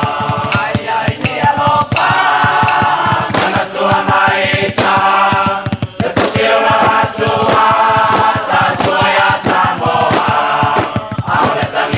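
A Samoan choir of village chiefs and orators singing a Samoan song together in parts.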